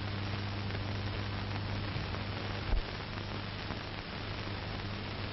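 Steady hiss with a low mains hum underneath: the background noise of the recording, with one faint click about three seconds in.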